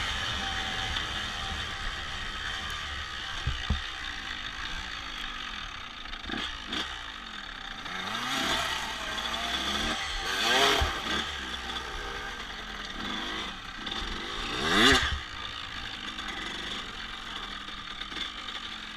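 Honda CRF250F single-cylinder four-stroke dirt-bike engine running, its pitch rising and falling in three swells about 8, 11 and 15 seconds in, the loudest near the end.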